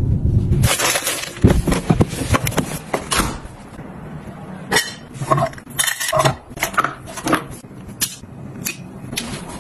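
A quick run of sharp clicks, knocks and light clinks from small household objects being handled and set down, with a low rumble at the very start.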